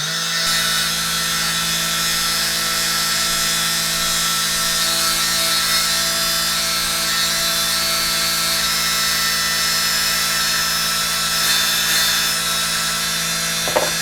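Slot car tire truer running steadily: the small electric motor hums at an even pitch while the spinning rubber tire is sanded to round off its edges, giving a high rasping hiss over the hum.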